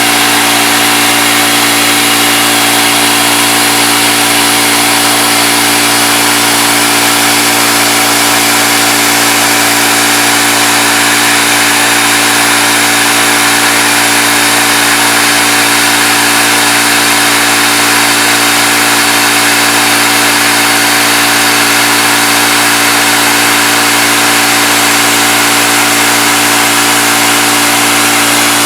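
CNC milling machine running steadily while cutting an aluminum part: a constant motor hum with several steady tones over a loud hiss.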